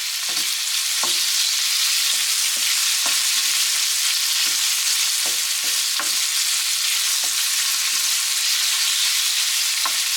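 Diced chicken breast and onions sizzling steadily in hot oil in a pan, stirred, with the utensil knocking and scraping against the pan at irregular moments.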